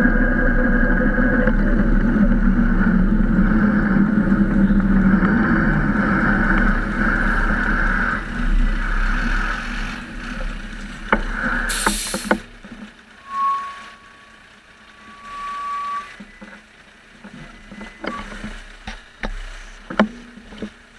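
Traffic and wind noise on a cyclist's camera riding close behind a Volvo double-decker bus. The noise falls away after about ten seconds, leaving a few sharp knocks, one short sharp hiss, and a steady squeal lasting about three seconds.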